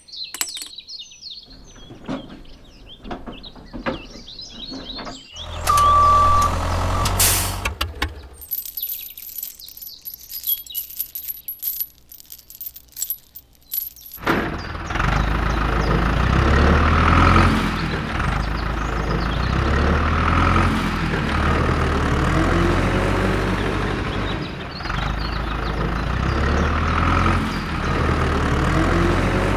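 Machinery or vehicle engine running in a low rumble, broken up at first by scattered clicks and a short beep. From about halfway it settles into a loud, steady rumble that swells and eases every few seconds.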